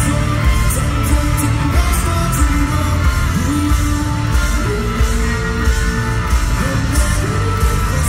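Live rock band playing loud through the PA, heard from among the crowd: distorted electric guitars, drums keeping a steady beat, and a lead voice singing.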